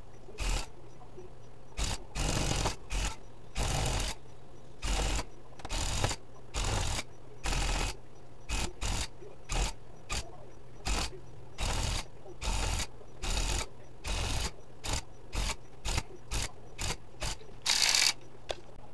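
Electric rug-tufting gun running in short stop-start bursts, a little more than one a second, as it punches yarn into the backing cloth. There is one louder burst near the end.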